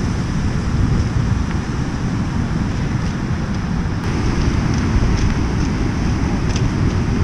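Wind buffeting the microphone over the steady wash of breaking surf, a loud continuous rumble.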